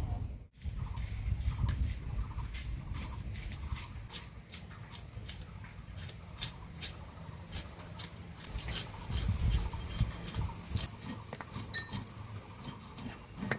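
A blade scraping and cutting a large katla fish, giving irregular sharp clicks and scrapes over a low rumble.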